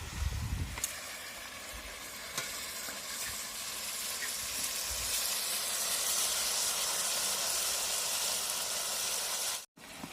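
Pork frying in hot oil, a steady sizzle that grows louder over the first half, with a couple of light clicks early on; it cuts off abruptly near the end.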